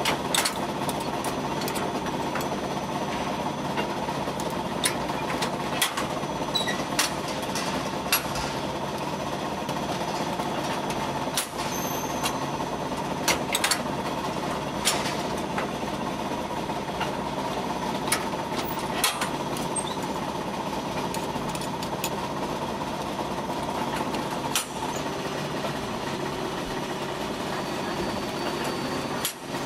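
Automatic hallabong-bread baking machine running with a steady mechanical hum as its chain of cast-iron molds advances. Irregular sharp metallic clicks and clanks come from the moving molds and the metal pick lifting the baked cakes out.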